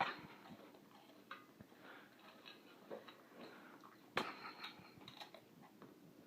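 A dog eating: small clicks and rustles of chewing and handling food, with one sharper click about four seconds in.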